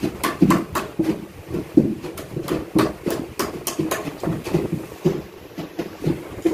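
Fish being chopped into pieces on boti blades (curved blades fixed in wooden bases): a run of irregular knocks and thuds, about two or three a second, as the pieces are pressed through the blade onto the wood.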